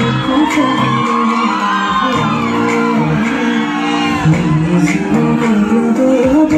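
Loud song with singing, with shouts and whoops from an audience rising and falling over it.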